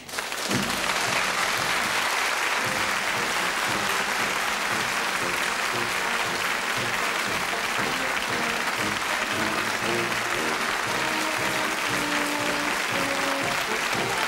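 Audience applauding over instrumental closing-credits music, the clapping starting all at once and holding steady while the band plays.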